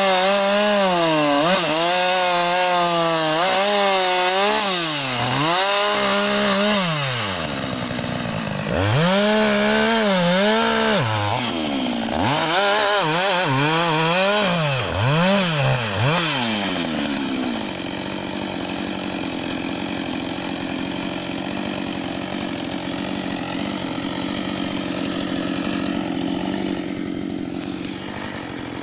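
Husqvarna 560 XP two-stroke chainsaw engine revving up and down over and over, its pitch rising and falling, then running at a steady high pitch for the last ten seconds or so.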